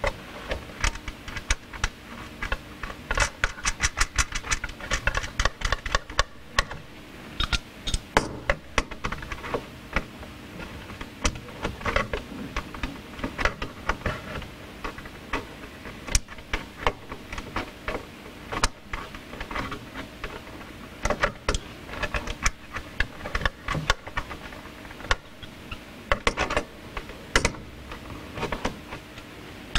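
Irregular clicks, taps and rattles of electrical cables and small plastic and metal parts being handled at a hot tub control box's terminal block, over a faint steady hum.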